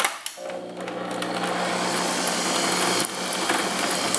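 Electric stand mixer's motor running at a steady hum, its twin wire beaters creaming sticks of butter in a glass bowl. It starts about half a second in.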